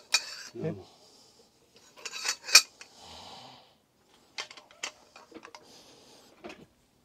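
Steel hand tools clinking and knocking against a bare engine block and its front crank gear, a string of sharp metallic clicks with short scraping stretches in between; the loudest clink comes about two and a half seconds in.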